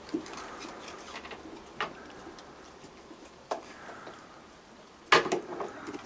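Raccoons feeding on a wooden deck: a few sharp, separate clicks and knocks over a faint hiss, then a louder cluster of knocks about five seconds in.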